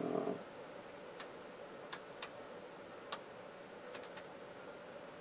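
Light, sharp clicks of oscilloscope controls being worked, about seven at irregular intervals, over a faint steady hum.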